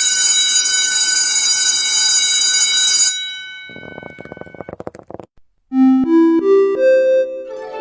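School class bells, one after another: an electric bell rings loudly for about three seconds and cuts off, followed by a fast rattling run of clicks. After a short gap comes a rising chime of about four notes.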